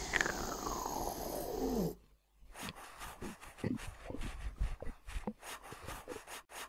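A drawn-out pitched sound sliding downward for about two seconds, then shuffling footsteps in flip-flop slippers: a quick, irregular run of soft taps.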